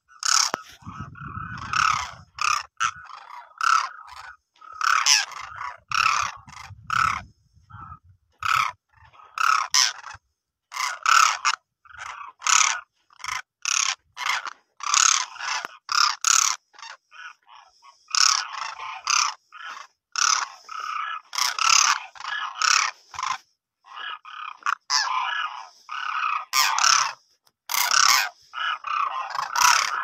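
A flock of demoiselle cranes calling: short, repeated calls, one or two a second, coming one after another with brief gaps.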